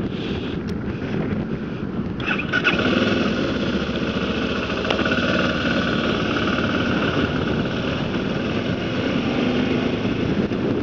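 BMW G650GS single-cylinder motorcycle engine running as the bike rides along, with wind rushing over the microphone; the sound gets a little louder about two seconds in.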